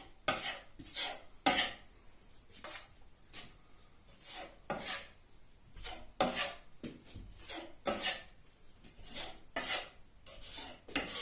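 A filling knife scraping filler over screw holes in plasterboard: quick, uneven scraping strokes, about two a second.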